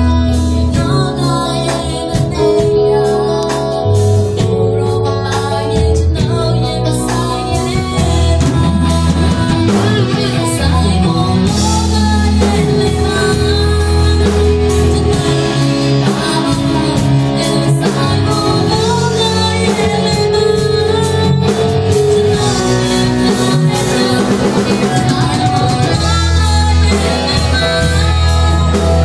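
A woman singing lead into a microphone with a live amplified band of drum kit, bass guitar and keyboard playing a song.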